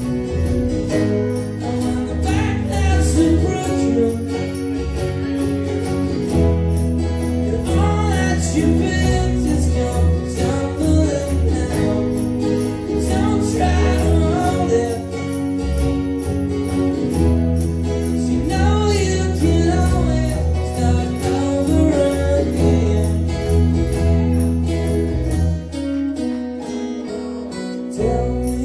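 Live rock band playing a stretch of a song with guitars over steady bass, with singing at times.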